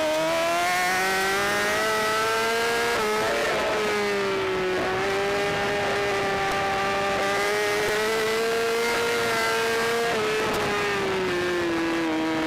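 Racing superbike engine heard from onboard at high revs, with wind rush. The pitch climbs for about three seconds, dips briefly as if on a gear change, rises slowly again, and falls away near the end as the rider eases off.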